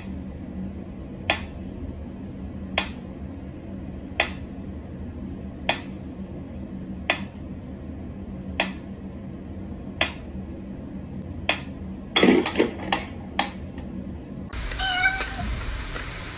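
Mechanical pendulum metronome ticking slowly and evenly, about one sharp tick every second and a half. About twelve seconds in, the steady beat gives way to a quick run of several clicks, then the sound changes to a different room's faint hiss.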